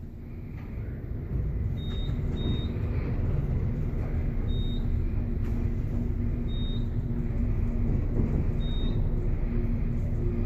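Low rumble of a vehicle engine running, with a steady hum and a short high beep about every two seconds.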